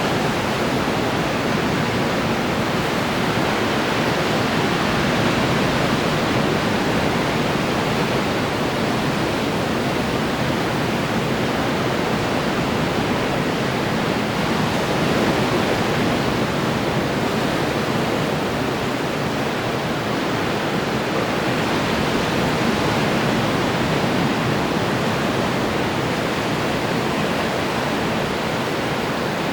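Ocean surf breaking on the shore, a steady dense wash of water with slight swells as waves come in.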